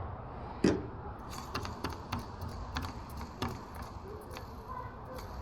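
One louder knock under a second in, then a run of quick, irregular light clicks and taps, like small hard parts being handled.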